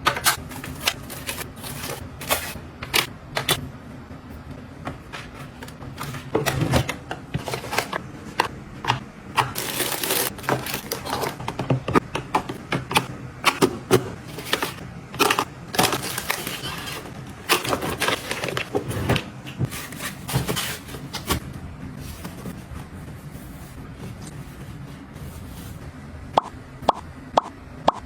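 Small objects being handled and set down by hand: many irregular taps and clicks, with a few short stretches of rustling.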